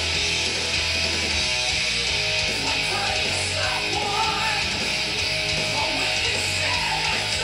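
Guitar-led music played back from a TEAC Sound 52 cassette recorded on a Pioneer CT-A9X deck, through a Pioneer A-88X amplifier and loudspeakers in the room.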